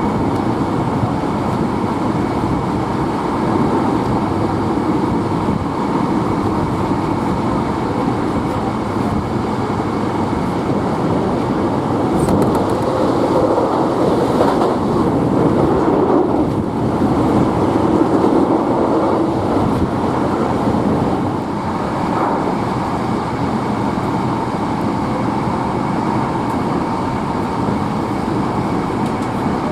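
Hankyu Kyoto Line electric train running, heard from aboard: steady noise of wheels on rails and the car in motion, growing louder for several seconds midway.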